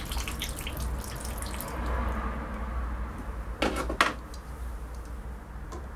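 Water running and dripping from a copper pipe, with a patter of fine drips in the first couple of seconds. Two sharp knocks come a little after three and a half seconds and again about four seconds in.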